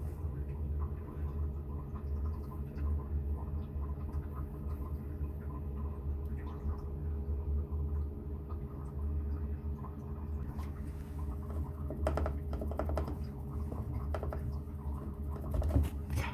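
A cat's claws scratching and tapping at a door: light scattered clicks and scrapes, with a denser run of clicks about twelve seconds in and a louder click near the end, over a steady low hum.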